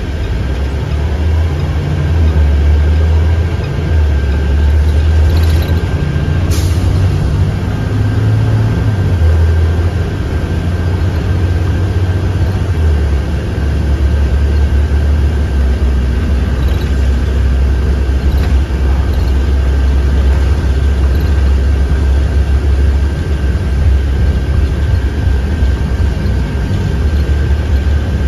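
2017 IC CE school bus heard from inside the cabin, pulling away and getting under way: a heavy low engine rumble whose note shifts in steps over the first dozen seconds, then settles into a steady cruise, with a thin steady whine throughout. One sharp click about six and a half seconds in.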